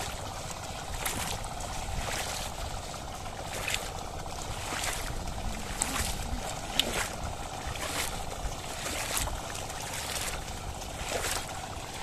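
Water and mud sloshing and splashing as a pair of oxen and a farmer wade through a flooded paddy field, dragging a wooden leveller. Irregular splashes come about once a second over a steady wash of water noise.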